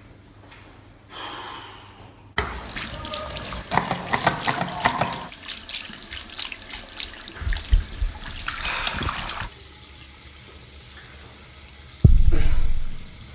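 Water running from a basin tap onto hands being washed, with splashing. It starts a couple of seconds in and stops after about seven seconds. Near the end there is a short, loud, low rumble.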